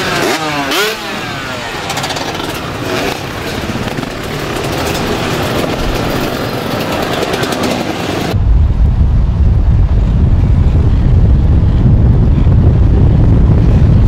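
Several enduro motorcycles riding past one after another, engines revving up and down. About eight seconds in the sound changes abruptly to a loud, heavy low rumble, wind buffeting the microphone from a moving car following the motorcycles.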